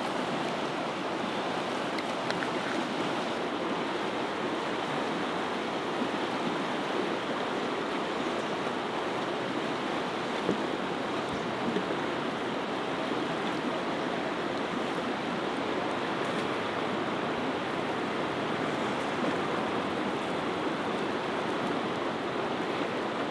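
Steady, even rush of a fast-flowing river, running unbroken.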